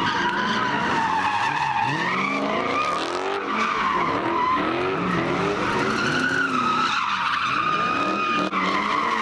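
Cars doing donuts and burnouts: tires squealing in a long, wavering screech while engines rev up and down over and over.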